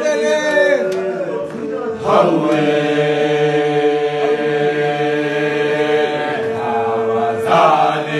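A group of men singing a cappella together in a gwijo-style chant, several voices in harmony. About two seconds in they come in together on one long chord held for some five seconds, and the voices move again near the end.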